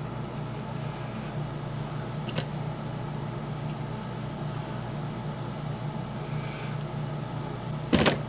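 Steady low hum of background machinery, with a faint click about two seconds in and a sharp knock near the end.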